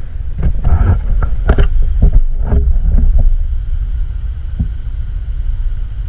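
Wind rumbling on the camera microphone, with a run of knocks and bumps in the first three seconds and one more near the end from the camera being handled and turned.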